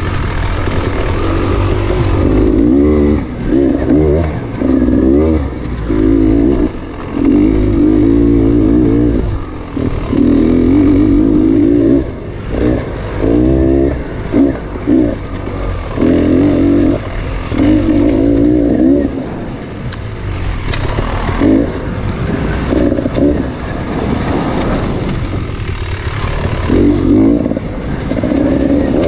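Two-stroke dirt bike engine ridden on and off the throttle in short surges every second or two, its pitch rising and wavering with each burst and dropping away between.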